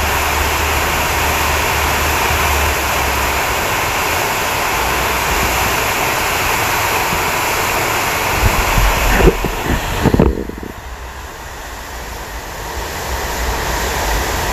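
Steady rushing of a waterfall running full after rain, with wind buffeting the microphone. A few gusty thumps come about nine to ten seconds in, then the rushing drops quieter for a few seconds before building back.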